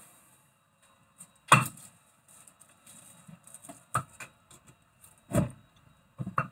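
Metal knocks and clinks as a rusty brake disc is worked loose from a car's front wheel hub by hand: four sharp knocks a second or more apart, with lighter clinks and rattles between.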